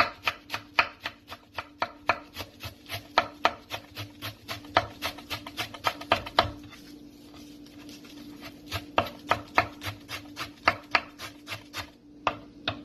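Chef's knife chopping fresh parsley on a wooden cutting board in quick strikes, about five a second. The chopping stops for about two seconds partway through, then starts again.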